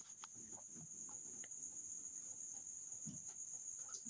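Faint, steady, high-pitched insect trill, with a few soft clicks and low rustles.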